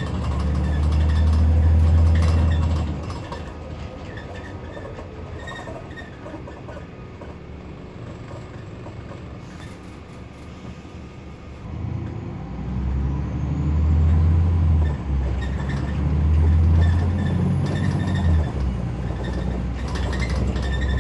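Scania N94UD double-decker bus's diesel engine heard from the upper deck, a loud low drone as it pulls hard, dropping to a quieter run for several seconds and then pulling hard again from about twelve seconds in. The drone breaks briefly twice near the end as the ZF automatic gearbox changes up.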